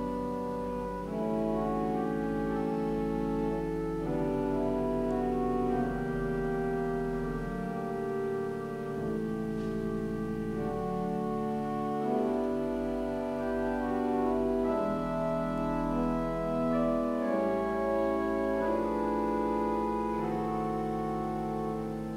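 Church pipe organ playing slow, sustained chords over a deep pedal bass, with the harmony changing every second or two.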